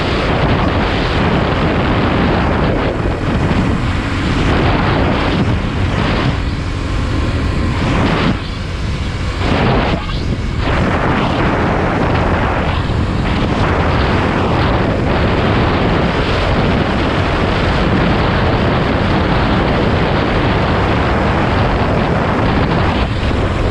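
Wind buffeting the microphone of a motorcycle travelling at road speed: a loud, steady rushing noise that covers the engine and tyres, easing briefly a couple of times around the middle.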